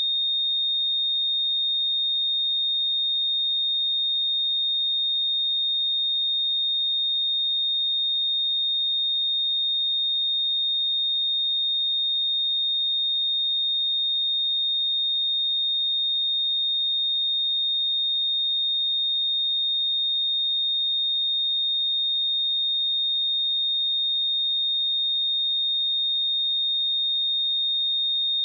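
A pure 3683 Hz sine-wave test tone, held steady at one pitch and level: a single high, unwavering electronic tone.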